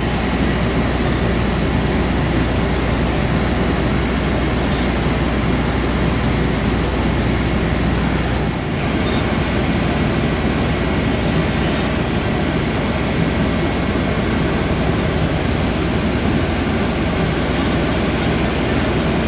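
Steady, loud rushing noise of running machinery with a low hum beneath it, broken by a brief dip about eight and a half seconds in.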